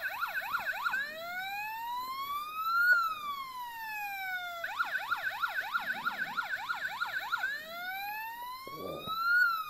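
Siku police boat toy's electronic siren sounding, alternating between a fast yelp of about three to four sweeps a second and a slow wail that rises for about two seconds and falls again. The cycle repeats twice.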